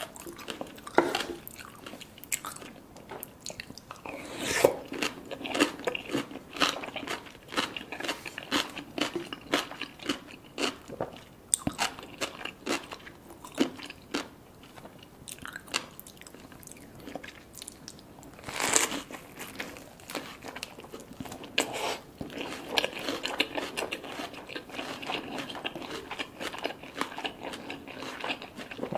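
Close-miked crunchy biting and chewing of food: many sharp crunches in quick, uneven succession, with one louder bite about two-thirds of the way through.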